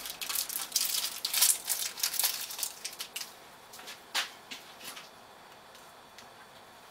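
Small metal sockets clinking and rattling as they are handled and sorted through, a dense run of clicks for about three seconds, then a few scattered clicks.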